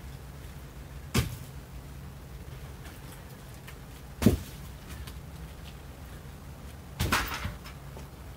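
Split firewood rounds knocking against wood as they are unloaded and stacked: three separate wooden clunks a few seconds apart, the sharpest in the middle and the last a longer clatter.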